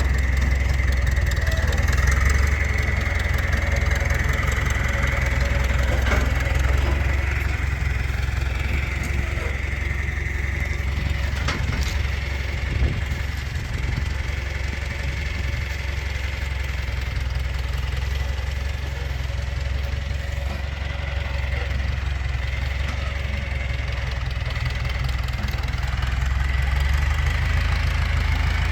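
John Deere tractor engine running steadily at a low, even drone, with a faint steady high whine over it.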